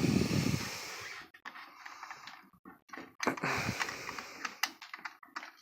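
Bernzomatic gas torch being lit: a whoosh as the flame catches, dying down to a hissing flame, then a second burst of flame noise about three seconds in, with a run of sharp clicks and taps.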